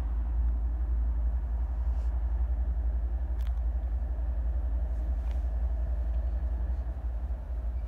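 Low, steady rumble of an approaching BNSF freight train's diesel locomotives.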